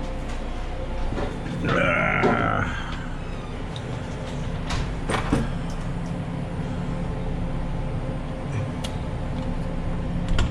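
Steady low mechanical hum, with a brief wavering squeal-like sound about two seconds in and a few sharp clicks around the middle.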